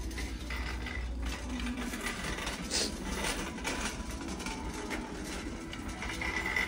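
Shopping cart rolling across a tiled store floor, its wheels and wire basket rattling with a steady clatter of small clicks.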